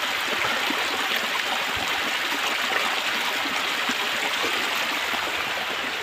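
Steady rush of water flowing in a waterfall stream.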